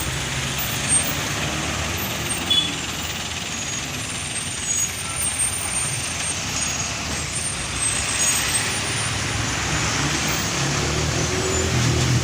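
Road traffic with heavy trucks passing: a steady rush of tyre and road noise over an engine rumble that grows louder near the end, with a few brief faint high squeaks.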